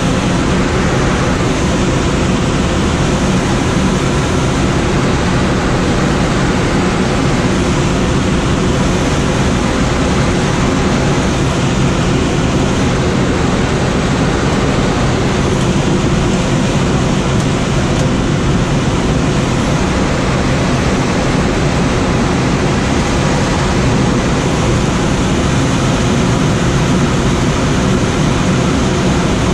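Steady rush of air over a Schweizer SGS 2-32 sailplane in engineless gliding flight: an even, unbroken wind noise.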